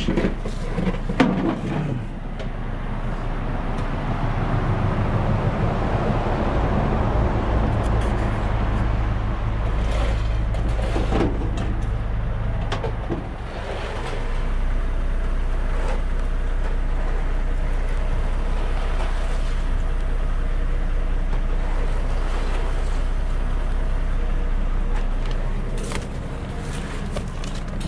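Large truck's diesel engine running steadily at raised speed. It dips briefly about halfway through, picks up again and eases near the end, with a few short metallic clanks.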